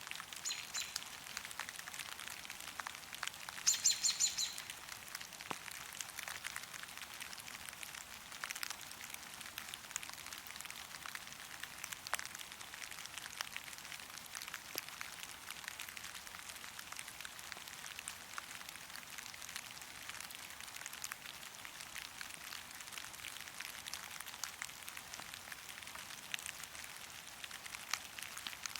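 Steady rain falling in a forest, with many individual drops ticking sharply over a soft hiss. A bird calls briefly about four seconds in.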